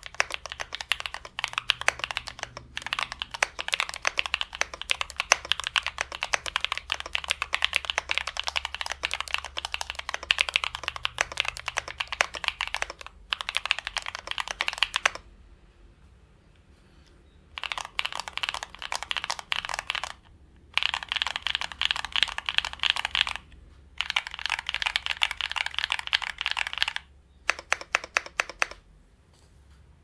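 Typing on a 60% mechanical keyboard with lubed KTT Macaron Blue tactile switches, cherry-profile keycaps and case and plate foam in an aluminium tofu-style case. Quick keystrokes come in bursts of several seconds, broken by pauses of one to two seconds (the longest about halfway through), and end with a few separate presses.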